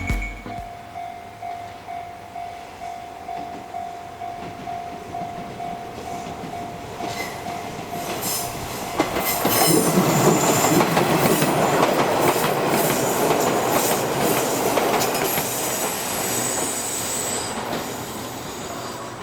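Electric train of the Izuhakone Railway Sunzu Line passing over a level crossing. It is faint at first, then loud from about nine seconds in, with the wheels clattering over the rails, and it eases off towards the end.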